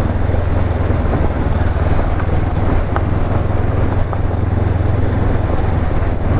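Honda CB500X's parallel-twin engine running steadily as the motorcycle rides over a rough, stony track, with a few faint ticks.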